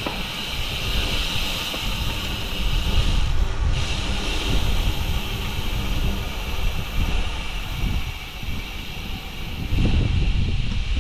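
Wind buffeting the microphone in an uneven low rumble over a steady hiss of air and tyres, as a road bike is ridden along a road.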